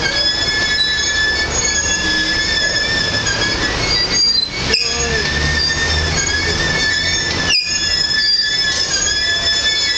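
Canadian Pacific Holiday Train's cars rolling past, their steel wheels squealing in several steady high tones over a low rumble.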